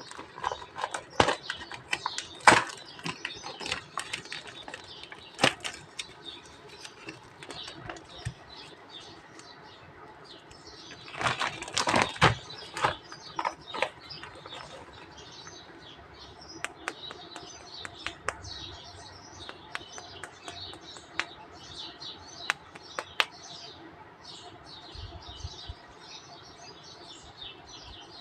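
Plastic toy packaging crinkling and rustling as it is handled, with sharp clicks and taps; the loudest, densest rustling comes a little before the middle.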